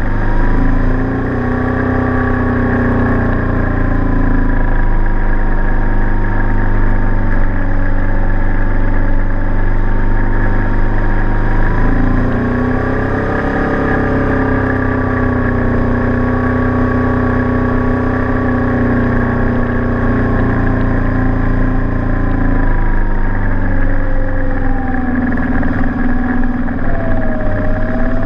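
Motor and propeller of a small RC flying wing, heard from a camera mounted on the airframe, running steadily with a buzzing hum under a rush of airflow. Its pitch shifts up and down a few times.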